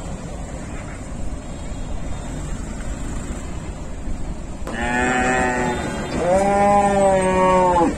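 Cow mooing twice: a short call about five seconds in, then a longer one right after.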